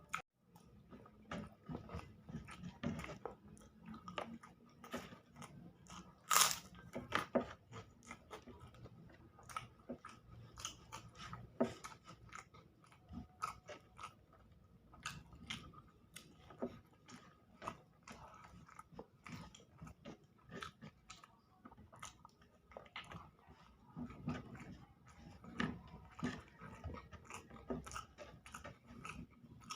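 Close-miked eating: a person chewing and biting through a meal of telur balado (eggs in chili sauce), with irregular wet mouth clicks and crunches and one louder sharp click about six seconds in. A faint steady tone hums underneath.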